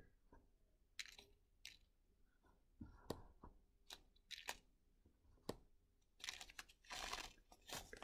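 Faint handling of a bead package: scattered light clicks and taps, then a longer crinkly rustle from about six seconds in.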